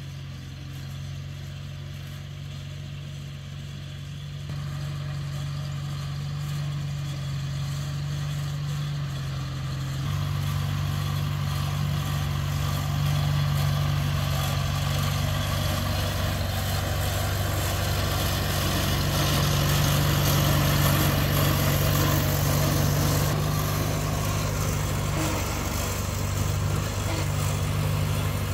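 1950 Farmall Cub tractor's small four-cylinder flathead engine running steadily as the tractor drives along, growing louder over the first half.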